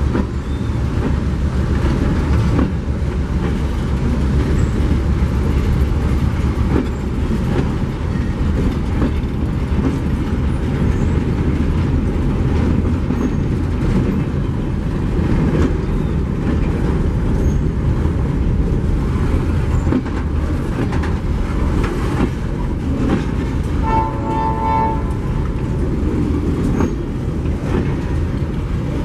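Freight train of covered hopper wagons rolling past close by: a steady low rumble of steel wheels running on the rails. About a second-long high-pitched tone stands out near the end.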